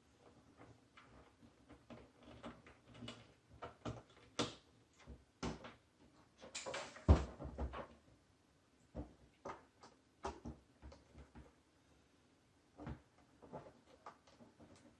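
Irregular small clicks, taps and knocks of a hand tool and fingers handling the plastic case of a radio-control transmitter while its back screws are undone, with a louder knock and a short scrape about seven seconds in.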